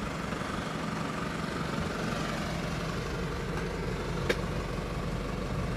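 Nissan E50 Elgrand's 3.0-litre turbo diesel engine idling steadily, with a single sharp click about four seconds in.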